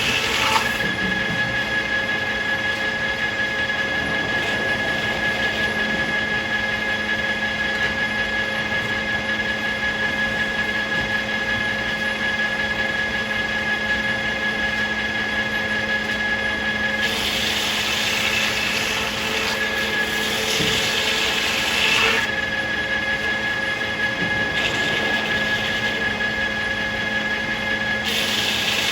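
Circular sawmill running, with a steady high whine over a lower hum. The whine gives way to a louder, rougher noise about two-thirds of the way through and again near the end.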